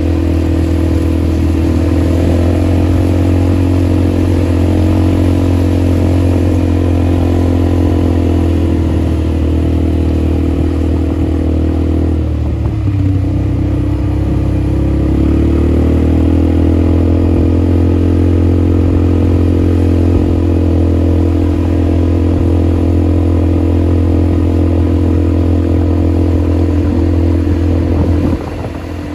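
ATV engine running steadily while riding; its pitch sags for a few seconds around the middle and climbs back, and it eases off just before the end.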